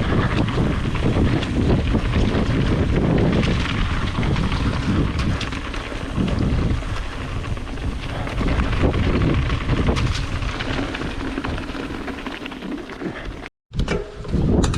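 Wind buffeting a helmet- or chest-mounted action camera's microphone while a mountain bike rolls fast down a rough, rocky trail, with tyre rumble and scattered knocks and rattles from the bike. The sound drops out briefly near the end.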